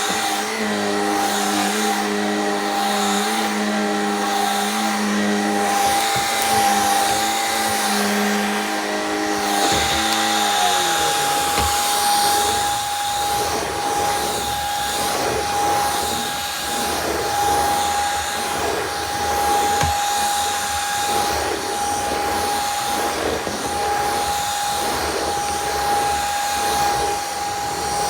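Shark Rocket Pro stick vacuum running with a steady high whine. About ten seconds in, a lower hum slides down in pitch and dies away, and the sound turns rougher and more uneven.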